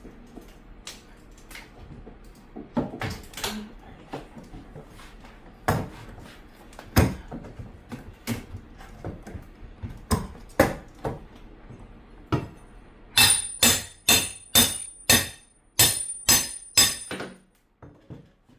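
Scattered knocks and hammer blows on wood, then a quick run of about ten hammer strikes with a metallic ring in the last few seconds.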